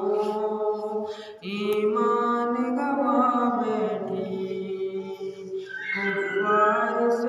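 A man singing an Urdu nazm unaccompanied into a microphone, drawing out long held notes with a short break for breath about a second in.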